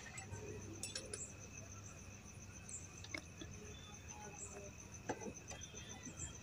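Faint metallic clicks and clinks of hands fitting the starter motor's cable and mounting on a Hero motorcycle engine: a few separate taps about a second in, around three seconds and around five seconds. A steady high pulsing tone runs underneath.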